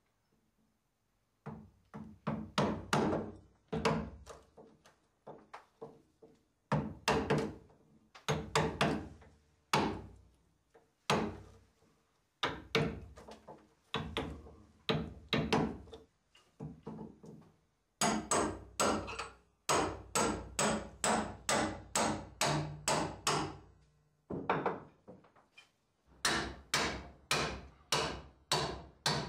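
Carpenter's hammer striking a chisel driven into a wooden boat timber. The sharp blows come about two to three a second in runs with short pauses, starting about a second and a half in.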